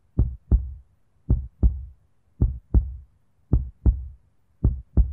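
Heartbeat sound effect: five double thumps, lub-dub, repeating about once a second.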